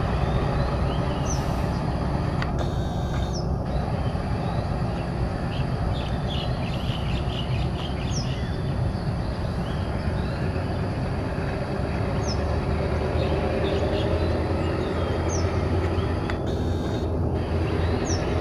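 Steady low rumble of a diesel-hauled passenger train running away along the track. A bird repeats a short high falling chirp every few seconds over it, with a burst of busier chirping in the middle.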